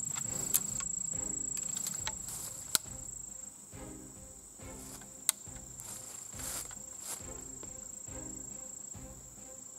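Insects, such as crickets, keeping up a steady high-pitched drone, with three sharp metallic clicks from handling the percussion lock of a black-powder rifle.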